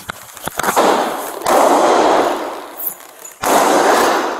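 Pistol shots picked up by a body-worn camera: the officer's own service handgun, fired by the man who took it. There are two sudden loud bangs, about one and a half seconds in and again about three and a half seconds in, each trailing off as about a second of harsh, distorted noise. A few sharp knocks come before them.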